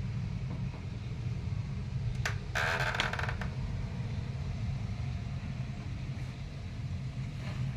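Continuous low rumble of a thunderstorm, one unbroken drone rather than separate thunderclaps. A brief louder noise comes about two and a half seconds in.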